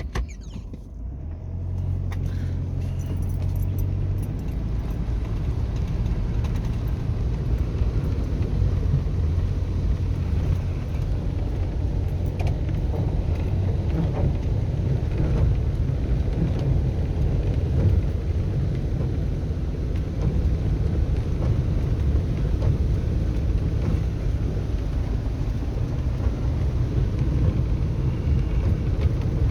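Toyota Hilux 4x4 driving, a steady low engine and road rumble that comes up over the first couple of seconds and then holds, with a few faint clicks and rattles.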